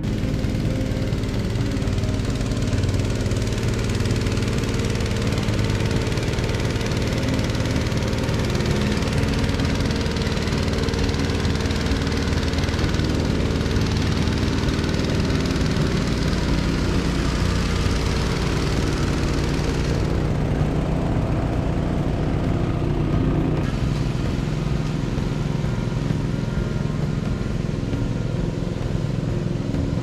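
An engine running steadily at a constant speed, with a rushing hiss over it. The hiss thins for a few seconds about two-thirds of the way through.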